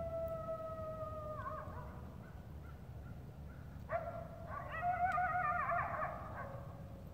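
Two coyote howls: the caller's long, steady howl slowly falls and breaks off with a short waver about a second and a half in; then, from about four seconds in, an eastern coyote howls back, its pitch wavering, and fades out near the end.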